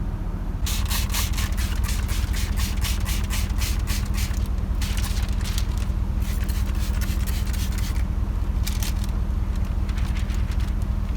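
Squeegee rubbing and scraping over window tint film on a windshield, in runs of quick repeated strokes about four a second with short pauses, over a steady low hum.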